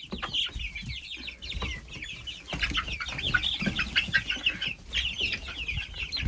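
Chickens calling: a dense chorus of short, high-pitched chick peeps, many a second, mixed with clucking.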